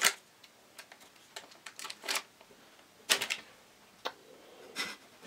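Plastic M&M's candy packet crinkling as it is slowly torn open, in a series of short crackles, the loudest at the start and about three seconds in.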